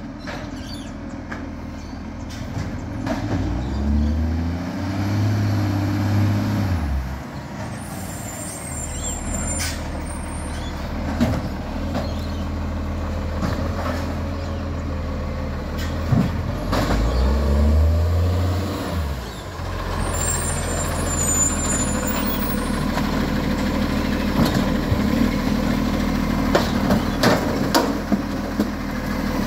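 Side-loader garbage truck's diesel engine running as it works along the kerb, revving up and holding for about three seconds twice while the hydraulic arm lifts and tips bins, with a few knocks and short air-brake hisses between stops.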